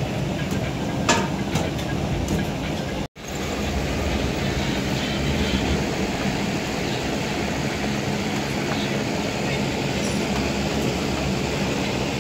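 Steady low roar and hum of a gas-fired steamer for rice noodle rolls running. A metal steaming tray clinks once about a second in.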